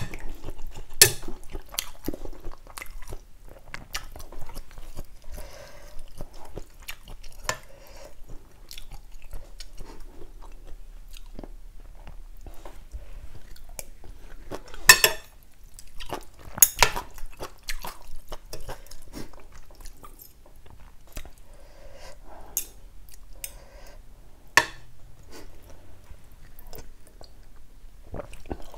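Close-miked eating of kuay jap rice-noodle soup: chewing and sipping from a spoon, with sharp clicks of spoon and fork against the bowl now and then, a few of them louder.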